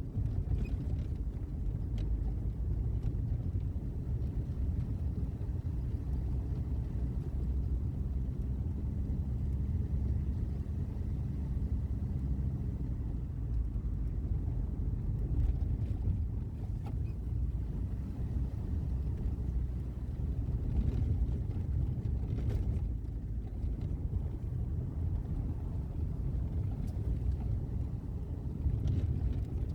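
A car driving, a steady low rumble of road and engine noise.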